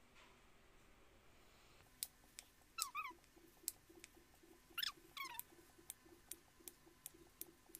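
Faint taps of a small kitchen knife against a wooden cutting board as a peeled banana is sliced, starting about two seconds in and settling into a tap every half second or less. Two short animal calls, each falling in pitch, come about three and five seconds in.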